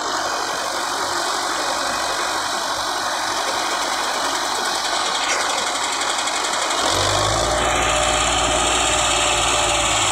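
Belarus MTZ-510 tractor's diesel engine running steadily while its hydraulics tip a loaded soil trolley. About seven seconds in the engine note gets deeper and a little louder as it takes the tipping load.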